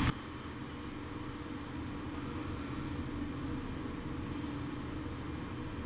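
Steady low rumble and hiss with a faint hum: background noise, with no distinct event.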